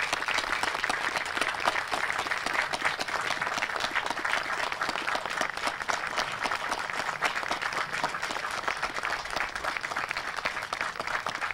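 A small outdoor crowd giving sustained applause, many hands clapping steadily, with no let-up for the whole stretch.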